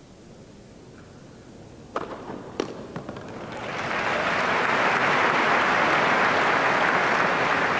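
Tennis ball struck twice by rackets about half a second apart, followed by a few lighter ball bounces, then a large indoor crowd bursts into loud, sustained applause as the point ends.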